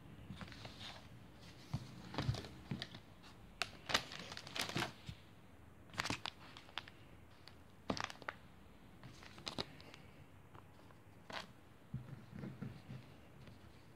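Clear plastic packaging crinkling and rustling in irregular bursts, with sharp crackles scattered throughout, as hands unpack a felt craft kit.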